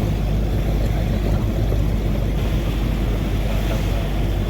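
Steady low drone and rumble of a running vehicle engine, with road or wind noise over it and no change in pitch or level.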